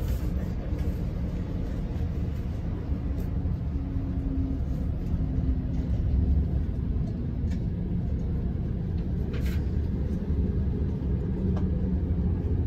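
Steady low rumble of an Amtrak Pacific Surfliner passenger train running on the rails, heard from inside the car, with faint humming tones and the odd light click.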